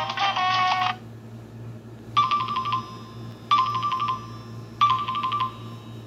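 Nokia Asha 300 ringtones played through a Nokia 130's loudspeaker: a polyphonic melody ends about a second in, then a short tone phrase sounds three times, about 1.3 seconds apart.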